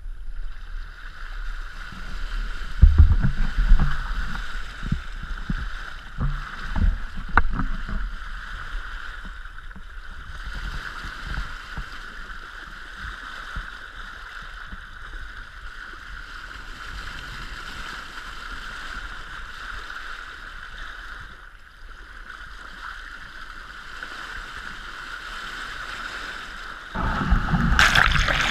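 Wind buffeting and water slapping against a camera held just above the sea at a sailing yacht's bow, with a steady hiss and low thumps in the first several seconds. About 27 seconds in it turns abruptly into a louder rushing sound as the camera plunges under water.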